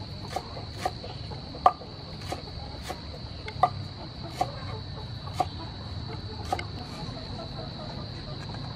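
Knife chopping green onions on a wooden cutting board: single sharp knocks spaced about half a second to a second apart, over a steady high-pitched whine.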